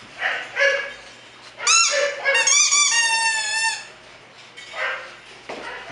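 A rubber squeaky dog toy squeaking in a rapid run of high squeals for about two seconds as bulldog puppies chew and tussle over it, after a couple of short puppy grunts.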